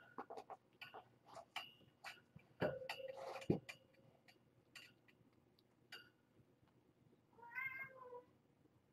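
A kitten's single short, high-pitched meow about seven and a half seconds in, among scattered light taps and clicks of kittens scampering over the rug and toys, with a louder thump about three and a half seconds in.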